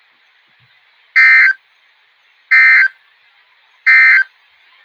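NOAA Weather Radio SAME end-of-message code: three short bursts of digital data screech, about a second apart, over faint radio hiss. It closes the required weekly test.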